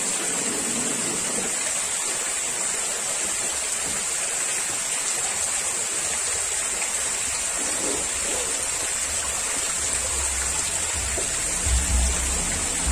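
Pool fountain jets spraying and splashing steadily into the water, a constant rain-like hiss. A couple of low thumps come near the end.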